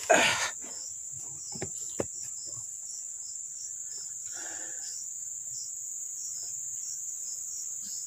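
Steady high-pitched drone of tropical forest insects, pulsing faintly about twice a second. A short noisy burst, the loudest sound, comes right at the start, and two small clicks follow about two seconds in.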